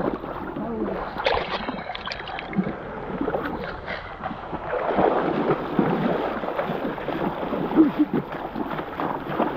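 River water sloshing, gurgling and splashing in small irregular bursts around people wading in a shallow river and reaching underwater.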